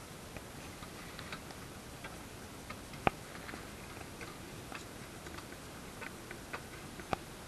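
Sailing dinghy under way, heard from on board: a steady hiss of wind and water with many light clicks and taps from the hull and rigging, and two sharp knocks, one about three seconds in and one near the end.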